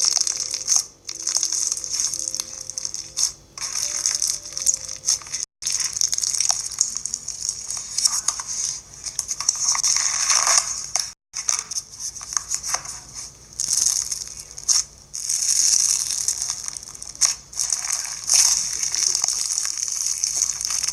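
Fishbowl slime, clear slime packed with foam beads, being squeezed and pressed, giving a dense, irregular crunchy crackling. The sound is cut off briefly twice.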